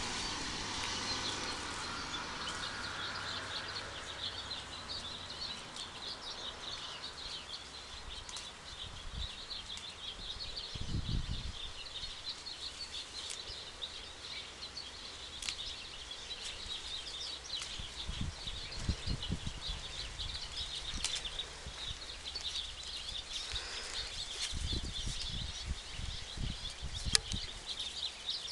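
Outdoor ambience of small birds chirping and twittering in a steady, high-pitched chorus, with a few low thumps now and then.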